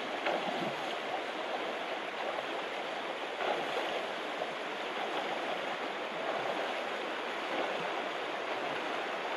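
Shallow river rippling over stones, with a person wading through it on foot, water splashing at the legs every second or two.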